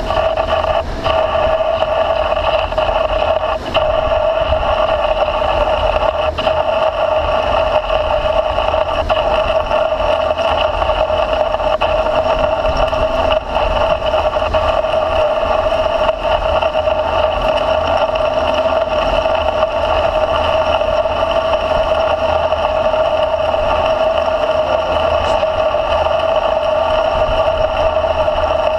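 Large engine lathe (American Pacemaker 20x192) turning a 15-inch hydraulic cylinder while an insert parting and grooving tool cuts into it to part off the blind end. The sound is a loud, steady whine with a low rumble and a few faint ticks.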